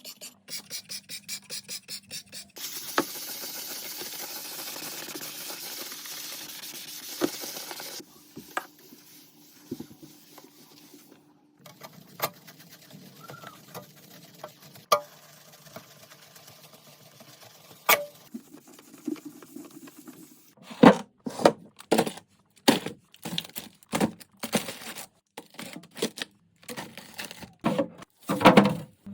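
Fridge-cleaning handling sounds: a rapid scrubbing rhythm at first, then about five seconds of steady hiss, then scattered clicks over quieter rustling, and in the last third a quick run of loud knocks and clatters as items are handled and set down.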